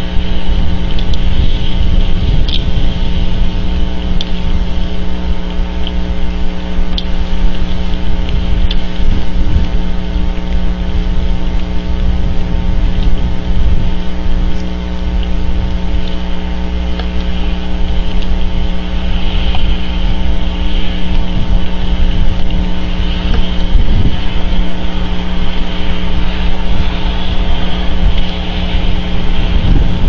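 Steady wind and rain noise on an outdoor wildlife-camera microphone, with a constant hum of several steady tones underneath and scattered light ticks.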